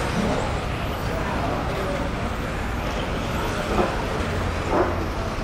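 Modified-class electric touring RC cars running laps, their brushless motors whining up and down over a steady outdoor rumble, with two short, louder passes about four and five seconds in.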